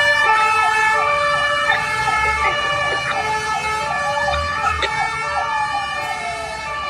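Fire engine's electronic siren yelping in rapid up-and-down sweeps over steady tones, growing fainter as the truck drives away; near the end it slides into a long falling sweep.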